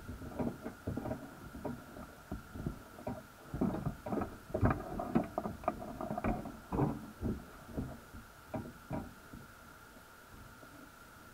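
Irregular muffled knocks and thumps heard underwater, bunched in the middle and thinning out near the end, over a steady faint high hum.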